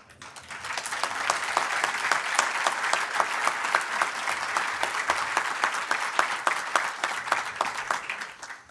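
Audience applauding, swelling within the first second and dying away near the end.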